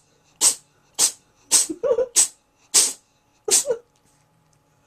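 A cat in a sneezing fit: about eight sharp, hissy sneezes in quick succession, roughly half a second apart, a couple of them with a brief pitched note. They stop about a second before the end.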